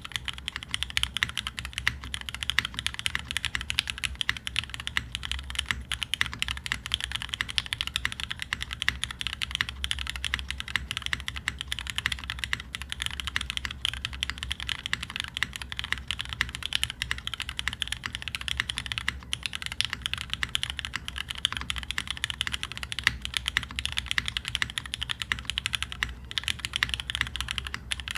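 Continuous typing on a custom mechanical keyboard: a Kitsune with an aluminium plate in an O-ring mount, lubed Cherry Hyperglide Black linear switches and GMK keycaps. It makes a dense, steady stream of keystroke clacks with no pauses.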